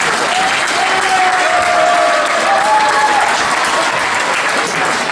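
Crowd applauding, with a few voices calling out over the clapping.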